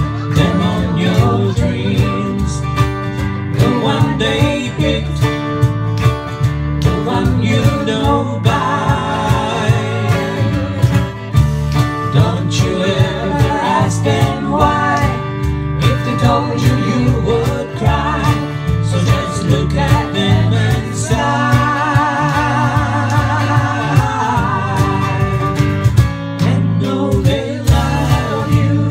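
Live country-folk band: voices singing in harmony over strummed acoustic guitar, mandolin and electric guitar.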